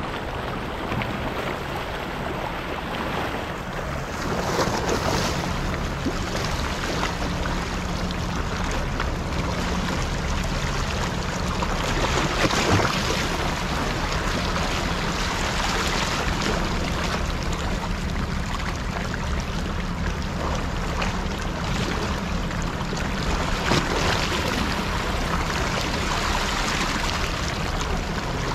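Waves washing over a rock shelf at the sea's edge, with wind buffeting the microphone, rising and falling in gusts over a low steady hum.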